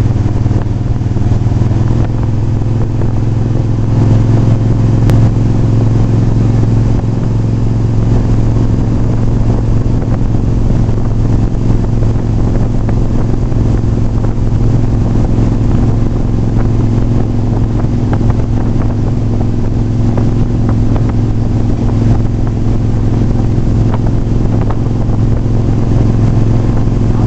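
Tow boat's engine running at a steady towing speed, a loud low drone with an unchanging pitch, heard from aboard the boat.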